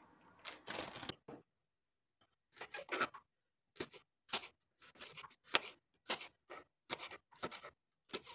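A chef's knife slicing fresh green beans on a cutting board: a run of short crisp cuts, each ending in a tap of the blade on the board, roughly two a second, starting a couple of seconds in.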